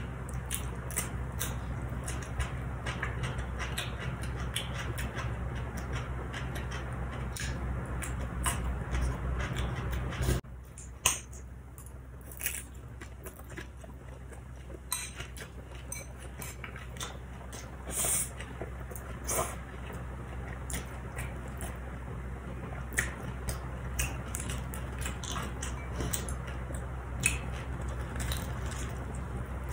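Close-miked chewing of crunchy food (cucumber and fried spring rolls), with many small sharp clicks and crunches scattered throughout. A steady low hum runs underneath and drops away about ten seconds in.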